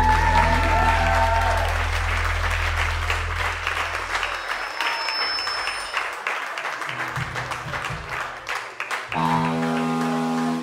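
A live band's closing notes ring out and fade over audience applause, which carries on for several seconds after the music dies away. About nine seconds in, a held instrument chord starts and then stops abruptly.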